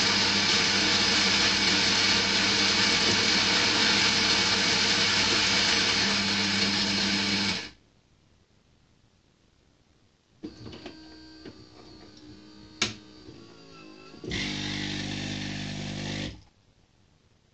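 Philips bean-to-cup espresso machine's built-in grinder running steadily for about eight seconds, grinding beans for an Americano. After a pause, the brewing unit moves with a sharp click, and the water pump then hums for about two seconds and stops.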